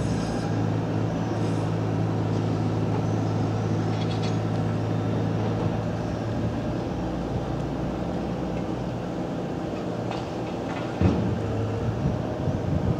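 City street traffic: a steady low vehicle hum, with a short thump about eleven seconds in.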